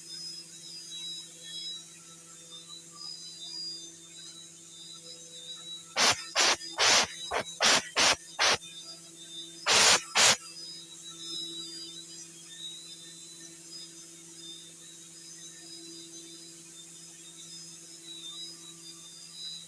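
CNC milling machine running with a steady hum and thin high whine, broken by a quick run of about eight short, loud hissing bursts about six seconds in and two more about ten seconds in.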